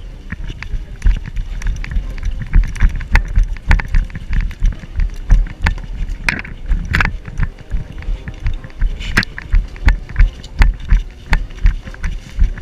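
Running footsteps, about two strides a second, each stride a heavy thump with gear and the body-worn camera jolting, and leaves and branches brushing past.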